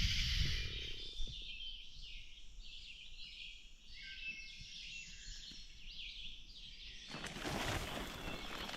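Birds calling in woodland, a run of short repeated chirps over quiet background. Near the end a louder, broad rushing noise starts suddenly.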